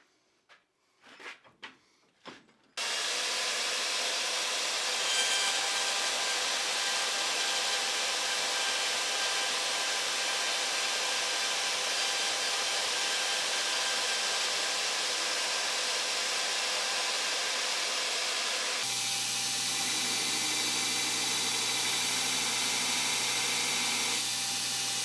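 A few short hand-tool strokes, then a power tool in the shop starts and runs steadily at full speed with a constant whine; a little over two-thirds through, its sound shifts and a low steady hum comes in.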